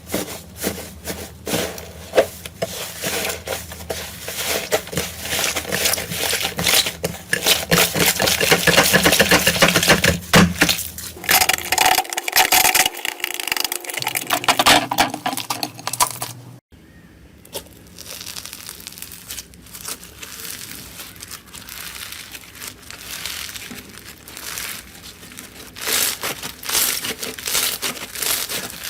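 Slime being squeezed and worked by hand, a dense run of crackling, popping and squishing. The sound changes abruptly twice as one slime clip gives way to another.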